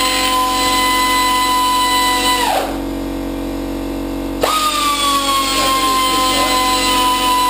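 A power ratchet's motor runs, its whine sagging slowly in pitch as it takes up load. It winds down and stops about two and a half seconds in, then starts again at a higher pitch about four and a half seconds in and sags again.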